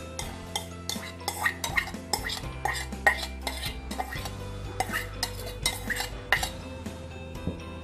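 A steel spoon scraping and tapping against stainless steel bowls as boiled sweet corn kernels are tipped out into a steel plate: an irregular run of metallic clinks and scrapes.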